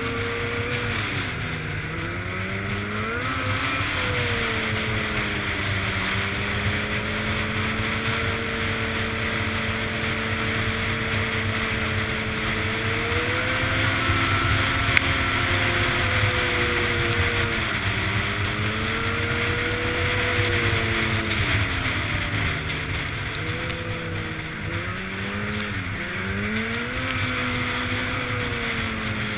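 Snowmobile engine running at speed, its pitch dropping and climbing back several times as the throttle is eased off and opened up again.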